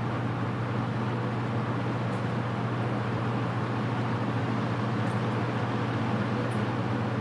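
Early-1980s Torcan 50 cm (20-inch) three-speed box fan running on low speed: a steady rush of air from its five plastic blades over a steady low motor hum.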